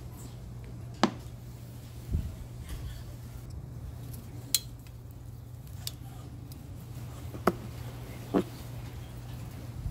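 Metal tongs and a kitchen knife clicking against a plastic cutting board while a grilled bone-in steak is handled and sliced: a dull thump about two seconds in and about five sharp clicks spaced a second or more apart, over a steady low hum.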